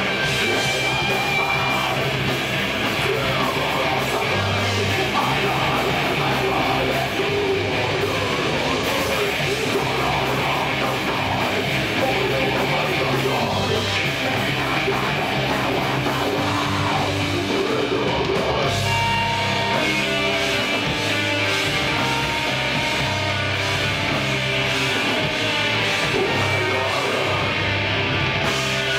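Live heavy metal band playing loud and without a break: distorted electric guitars, bass and drum kit, with a vocalist shouting into the microphone.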